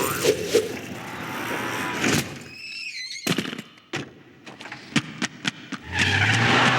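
Film sound effects: a high wavering squeal, then a string of sharp clicks and knocks, then a car engine starting up near the end and running on.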